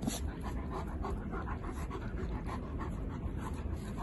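Dog panting in quick, short breaths during rough play-wrestling with a puppy, over a steady low rumble.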